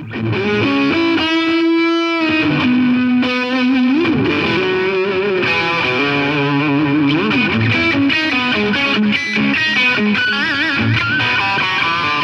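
Recorded electric guitar music with distortion: a lead line of held notes, slides and vibrato over lower chords. It starts suddenly.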